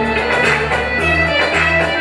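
Loud song music for the dance, with a plucked-string instrumental line over a bass line that changes note about every half second.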